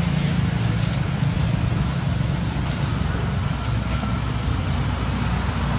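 Steady low rumble of outdoor background noise, with no distinct calls or knocks.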